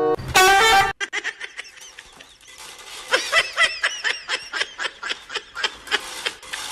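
A loud, wavering pitched sound for about the first second, then a person laughing in quick short bursts that grow denser about three seconds in.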